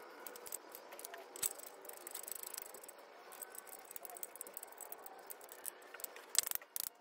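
Scattered small metallic clicks and rattles from hand tools and sump bolts being handled and turned, with a quick cluster of clicks near the end.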